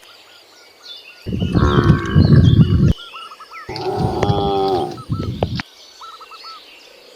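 Cows mooing: two long moos, the first beginning about a second in and the second near the middle, its pitch falling toward the end.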